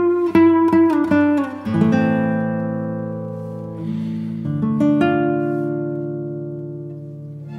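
Background music on acoustic guitar: a quick run of picked notes, then a chord left to ring and fade, and a second chord about halfway through that also rings out.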